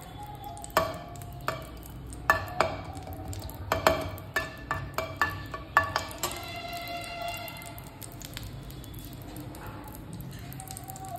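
A metal spoon clinking and scraping against a pan while cashews are stirred and roasted in ghee, with a faint sizzle. There are a dozen or so sharp clinks over the first six seconds, then a short ringing, then only a low steady background.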